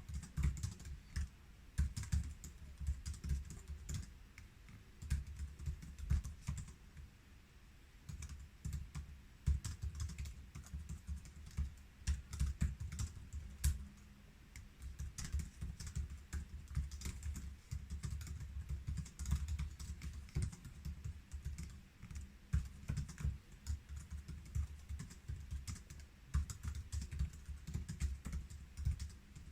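Typing on the built-in keyboard of a 2013 13-inch MacBook Pro Retina: a rapid, irregular run of low-travel key clicks with soft thuds, pausing briefly now and then.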